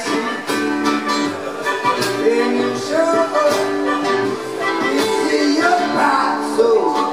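Live solo performance: acoustic guitar strummed in a steady rhythm while a man sings, amplified through a PA.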